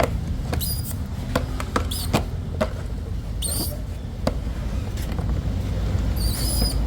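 Sharp clicks and knocks from tools and parts being handled during a fuel-filter change. Four short high squeaks come in among them, over a steady low rumble.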